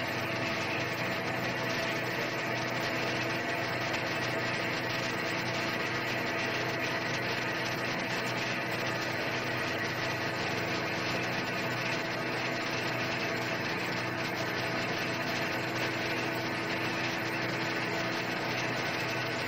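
Centre lathe running at a steady speed: a constant mechanical hum with several fixed tones from the motor and spindle drive.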